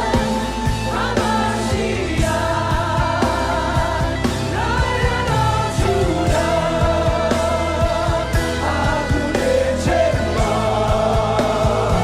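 Live worship music: a band playing sustained chords over a steady beat, with voices singing.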